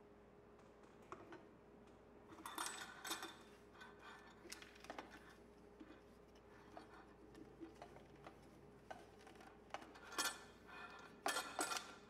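Metal parts of a new Badger 100 garbage disposal clinking and rattling as they are handled: four short bunches of ringing metallic clinks, the loudest near the end.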